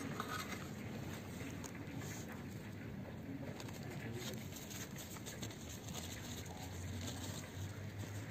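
Steady outdoor background noise with birds calling, and faint scrapes and taps of a metal fork cutting and lifting pizza from a frying pan.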